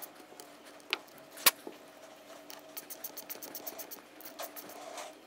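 Faint handling noises of a metal oil filter housing on a workbench: a few light clicks and taps, the sharpest about a second and a half in, over a faint steady hum.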